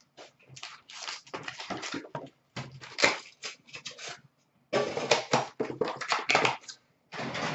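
Cardboard box and card-pack wrappers being handled and torn open: a run of short crinkling rustles, with a longer tearing rustle near the end.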